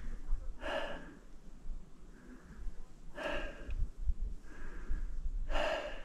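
A hiker breathing hard and out of breath while resting after a climb: three strong exhales about two and a half seconds apart, with quieter inhales between them.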